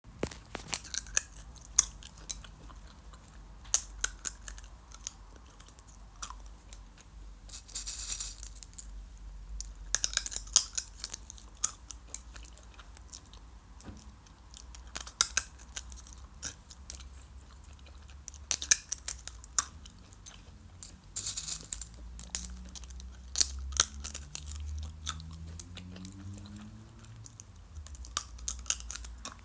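Sunflower seeds being cracked open between the teeth and chewed: irregular sharp cracks and crunches, some single, some in quick clusters. A faint low rising drone sits under them in the second half.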